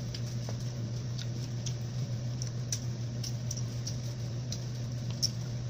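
Soft eating sounds: scattered faint clicks of chewing and a fork touching a plate of rice, over a steady low hum.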